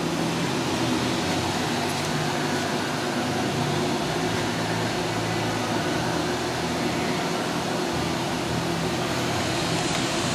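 Doosan DNM-400 CNC vertical machining center powered up and idling: a steady mechanical hum of its motors, fans and pumps, with a few low steady tones.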